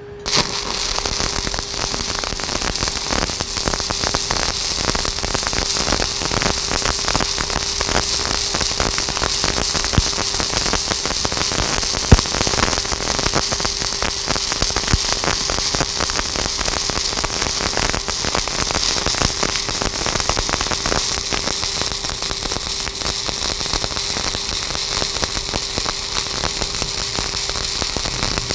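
Stick-welding (SMAW) arc of a 1/8-inch 7018 electrode at about 135 amps laying a weaving fill pass on half-inch steel plate: a steady dense crackle and sizzle that strikes up just after the start and keeps going, with one sharp pop about twelve seconds in. A steady hum runs underneath.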